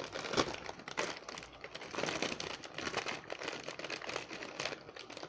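Plastic snack bag crinkling as it is handled, a dense run of irregular crackles.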